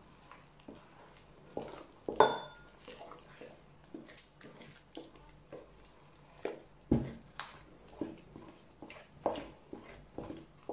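A spoon stirring thick semolina cake batter in a stainless steel mixing bowl: irregular scrapes and knocks of the spoon against the metal, the loudest about two seconds in with a brief ring from the bowl.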